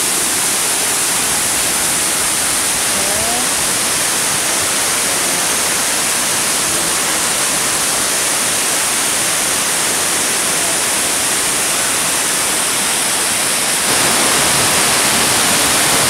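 Steady rush of waterfall water pouring and cascading over rocks, stepping up a little louder about fourteen seconds in.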